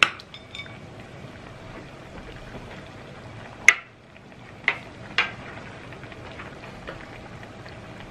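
A metal ladle clinking a few times against the pot and the ceramic plate as oden is served, over a steady soft bubbling hiss from the simmering oden broth.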